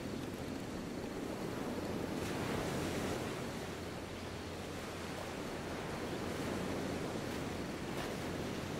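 Ocean waves breaking and washing onto a beach: a steady rush of surf that swells and eases gently in loudness.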